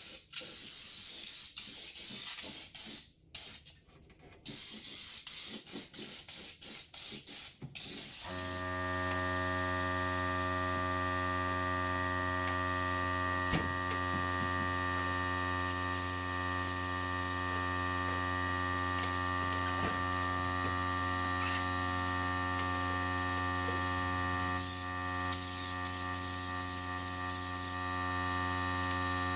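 Compressed-air spray gun hissing in short bursts as it sprays a black liner coating. About eight seconds in, a steady electric hum starts and keeps going under the later spray bursts.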